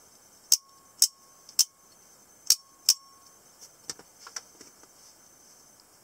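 Spring-loaded automatic folding knife snapping its blade open and shut: five sharp metallic clicks in about two and a half seconds, each with a short ring, followed by a few softer clicks.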